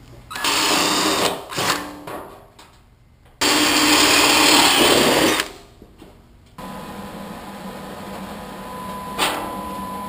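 Cordless drill with a 3/16-inch bit boring plug-weld holes through a thin sheet-steel flange into a wooden backer block, in two runs of about one and a half to two seconds each. The second run starts about three and a half seconds in. A steady background hum follows from about halfway through.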